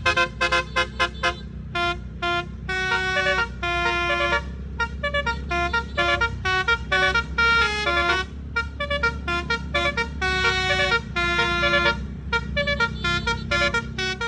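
Tour bus's basuri musical air horn playing a rapid telolet melody: quick runs of short notes mixed with longer held notes, one after another. The bus engine hums steadily underneath.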